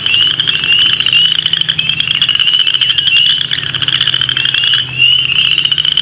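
A chorus of upland chorus frogs calling: many overlapping short, rising, pulsed trills repeating one after another.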